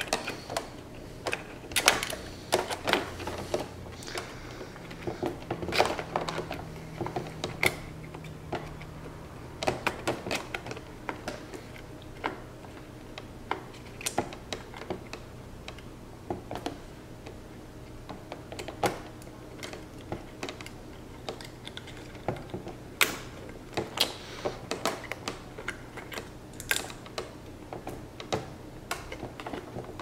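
Irregular small clicks and taps of metal on metal and plastic as a pick and brass pin are worked into a vacuum canister's latch mount, lining up the latch, its spring and the pin holes. A faint steady hum lies underneath.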